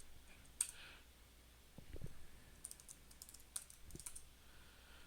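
Faint, scattered keystrokes on a computer keyboard, a few isolated taps and a short run of quick ones in the middle.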